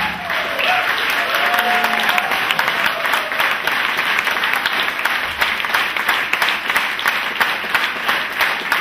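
Audience applauding after the final number: dense, steady clapping from a full hall.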